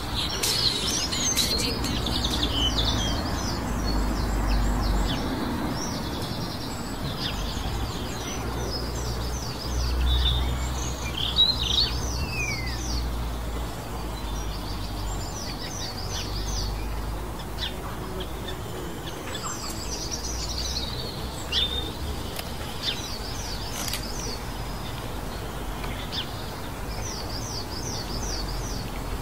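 Songbirds chirping and singing in repeated quick runs of high notes, over a low steady rumble of outdoor background noise.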